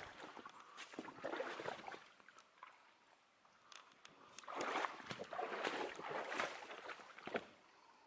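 Water splashing and sloshing in uneven surges, louder about a second in and again from about four and a half to seven and a half seconds.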